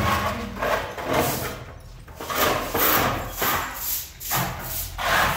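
A thud, then rhythmic rubbing or scraping strokes, about two a second.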